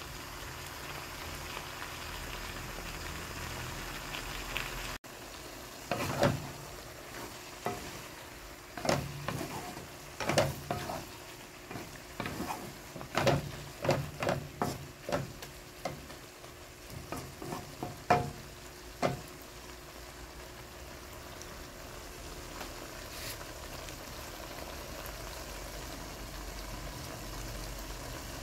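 Water spinach (kangkong) and pork belly sizzling as they stir-fry in a pan. Through the middle stretch there is a run of sharp clacks from the utensil knocking against the pan as the greens are tossed; before and after it there is only a steady sizzle.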